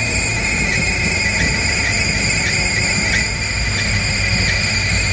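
Low, steady rumble of a Lada Niva's engine running as it wades through deep water, under a steady high-pitched whine.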